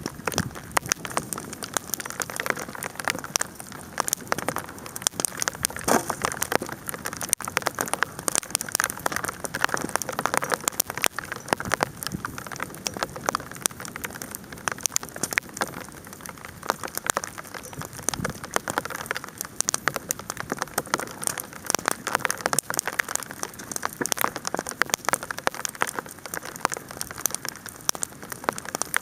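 Bonfire burning with dense, continuous crackling: many small snaps and pops a second, with occasional louder pops.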